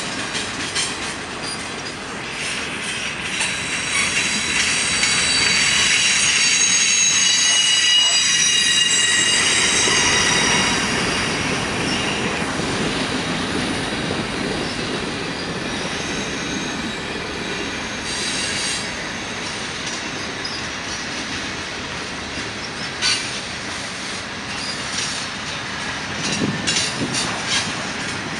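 Freight cars of a CN mixed freight train (covered hoppers, tank cars and boxcars) rolling past on the rails with a steady rumble. A high-pitched wheel squeal is loudest in the first ten seconds or so and then fades, and a few clicks of wheels over rail joints come near the end.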